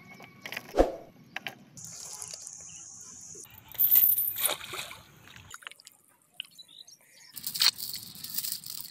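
Water splashing and trickling as hands work in shallow water, with a metal chain rattling near the end.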